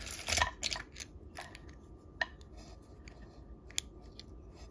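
Small hard vintage buttons and jewelry pieces being handled. A quick flurry of clicks and rustling in the first second is followed by a few scattered light clicks as pieces knock together and against the table.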